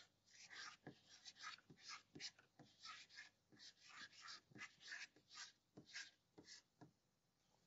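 Chalk writing on a blackboard: a run of faint, short scratches and taps, about two or three strokes a second, as a phrase is written out by hand.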